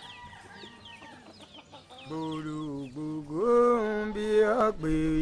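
A rooster crowing with small birds chirping, then about two seconds in a man starts singing a slow chant in long held notes that step up and down in pitch, which is the loudest sound.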